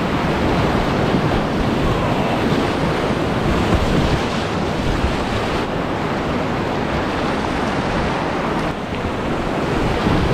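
Loud, steady rush of a shallow whitewater rapid churning close around a kayak's bow as it runs through.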